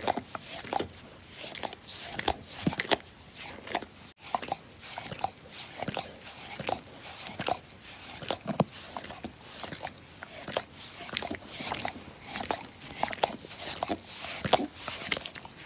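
A dog licking in quick, irregular strokes, several a second, with a momentary break about four seconds in.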